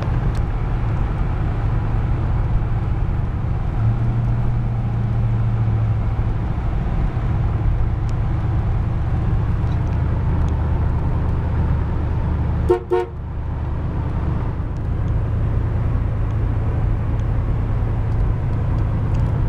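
1990 Chevrolet Caprice Classic's 5.0 V8 and tyre noise heard from inside the cabin while cruising at about 50 mph, a steady low drone. About 13 seconds in, a brief click with a short tone cuts in.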